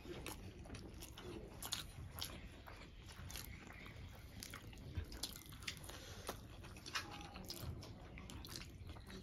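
Close-miked chewing of fried fish and rice eaten by hand: wet lip-smacking and mouth clicks at an irregular pace, with occasional soft crunches.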